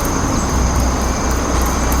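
Steady outdoor background rumble and hiss with a constant thin high-pitched tone over it.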